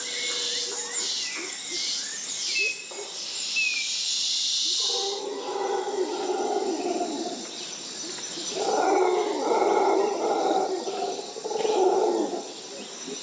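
Rainforest ambience. For the first five seconds insects buzz in high, hissing waves, with a few short bird chirps. Then come loud, rough, low-pitched animal calls in two long bouts, over a steady high insect drone.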